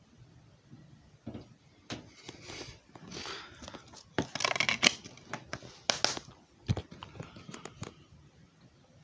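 Hands handling objects: crinkling and rustling with a string of sharp clicks and knocks, busiest about halfway through.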